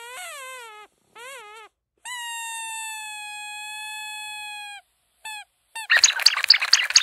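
Rubber squeaky dog toy squeezed over and over: a short squeak that falls in pitch, a brief one, then one long steady squeak held for nearly three seconds, and another short one. Near the end comes a rapid, harsh flurry of squeaks, the loudest part.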